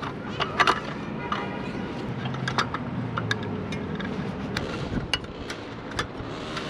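Aluminium slats of a folding camp table clinking and rattling as the table is unfolded, several sharp metallic clicks, over background music.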